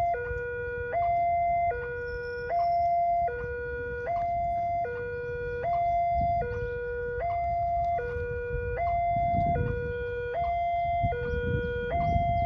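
Railway level-crossing warning alarm sounding its electronic two-tone signal, a higher and a lower note alternating about every three-quarters of a second: the warning that a train is approaching and the barriers are down. A low rumble grows louder near the end.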